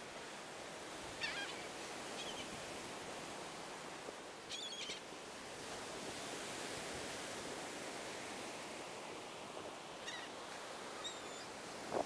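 Laughing gulls giving a few short, high cries, scattered through and clearest about halfway, over a steady rush of wind and surf.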